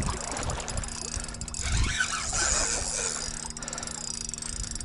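Spinning reel being cranked against a heavy fish while its loosened drag slips and ticks out line as fast as it is wound in: a big fish holding hard in the current.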